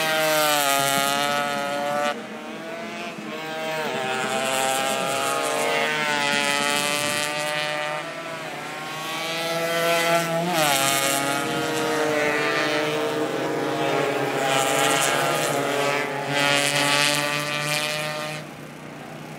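Suzuki AX100 two-stroke single-cylinder race motorcycles passing one after another at full throttle, their engine note sweeping down in pitch as each goes by. About ten seconds in a bike's engine climbs sharply in pitch, then falls away as it passes; the sound drops off near the end.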